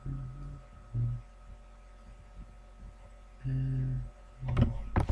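Short, low murmurs of a voice without clear words, over a steady low electrical hum, with a quick run of sharp knocks and rustles near the end from dolls and ribbon being handled right at the microphone.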